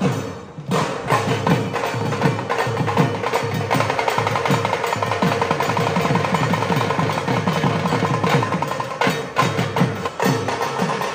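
Dhak drums beaten with sticks, together with a smaller stick drum, in a fast, driving rhythm of rapid, evenly repeated strokes. A steady ringing and quick clicking strikes sit over the deep beats.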